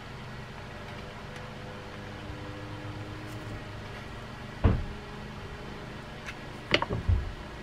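Knocks and clicks of a fishing reel's side case and frame being pressed and worked together as the parts are fitted: one sharp knock about halfway through, then a quick cluster of knocks near the end, over a steady low hum.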